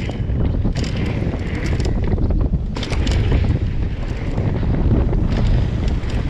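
Wind rumbling on the camera's microphone as a mountain bike rides fast down a dirt trail, with tyres crunching over the dirt and the bike clattering over rough patches several times.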